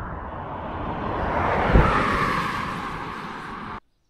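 A vehicle passing close by on the highway, its tyre and engine noise swelling to a peak about two seconds in and then fading. The sound cuts off sharply near the end.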